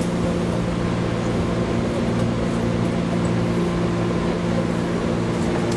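A JR 211-series electric multiple unit running, heard from inside the train: a steady mechanical hum with several held low tones over a rumble.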